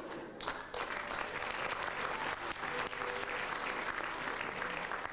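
Audience applauding, a dense patter of many hands clapping that swells about half a second in and then holds steady.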